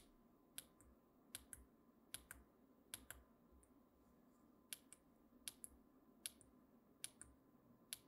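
Small tactile push-button switch clicked about nine times, each press a quick double click as it goes down and springs back, with a short pause midway. Faint.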